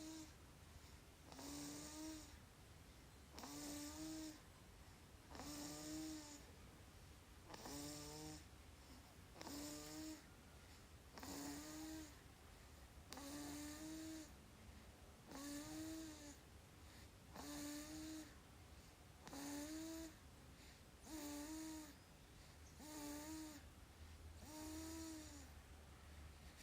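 Baby snoring in sleep: a short pitched snore on each breath, evenly about once every two seconds, each with a tone that bends up and back down.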